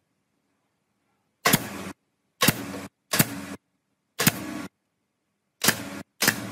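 Pneumatic nail gun firing nails into a plywood panel six times, about a second apart. Each shot is a sharp crack followed by a short hiss of exhausted air.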